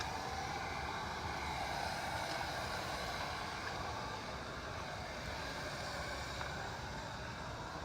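Garden-hose coil-cleaner sprayer spraying a water and coil-cleaner mix into a condensing unit's coil fins: a steady hiss of spray.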